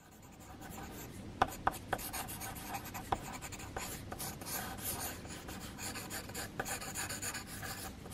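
Mechanical pencil scratching on paper in quick, continuous sketching strokes, with a few sharper ticks in the first few seconds.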